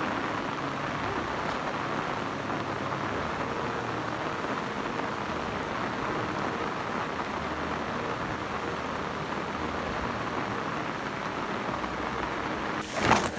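Steady rain falling, an even hiss, with a brief louder burst of noise near the end.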